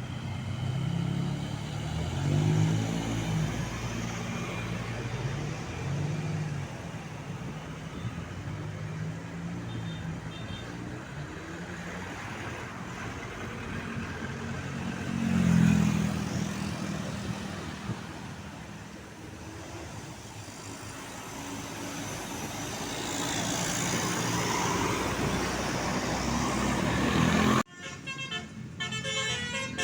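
Tour buses passing on a road, engines running, with horn toots over the traffic noise. A sudden cut near the end brings in a different, more patterned horn sound.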